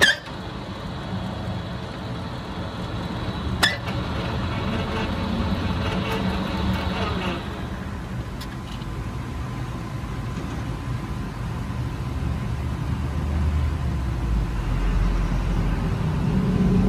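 Metal lathe running with its chuck spinning a steel shaft, a steady mechanical hum with a sharp click at the very start and another about four seconds in. The lathe has stopped by the end.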